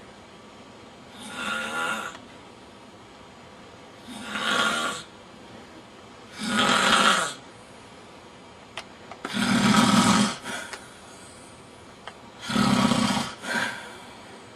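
A man snoring loudly in his sleep: five rasping snores, one on each breath, each about a second long and coming every two and a half to three seconds. The fourth snore is the loudest and longest.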